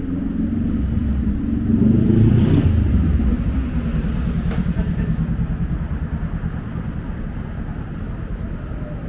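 Low rumble of city street traffic mixed with wind buffeting the microphone. It swells about two seconds in, as a vehicle passes, then eases into a fluttering rumble.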